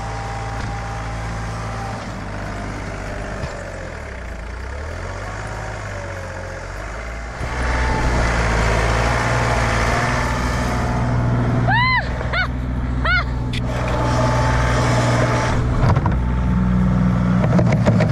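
Diesel engine of a John Deere 3033R compact tractor running steadily, louder from about seven seconds in. About two-thirds through come three short whistle-like tones that rise and fall.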